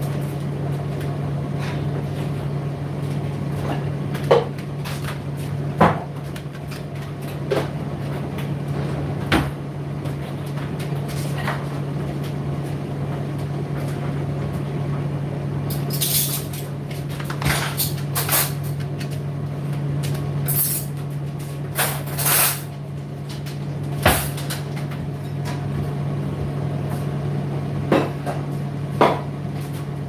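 Indesit IDC8T3 condenser tumble dryer running: a steady low motor hum with irregular knocks and clicks from the tumbling drum, several coming close together about halfway through.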